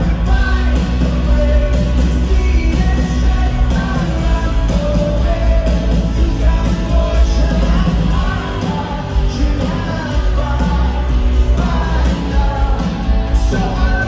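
Rock band playing live with a singer, heard from high in an arena's stands, with heavy booming bass and the hall's echo. The low end eases back for a few seconds past the middle, then returns.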